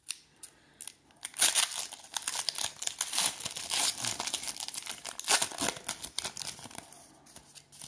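Foil wrapper of a football trading-card pack crinkling and tearing as it is opened by hand, in a dense run of irregular crackles that starts about a second in and thins out near the end.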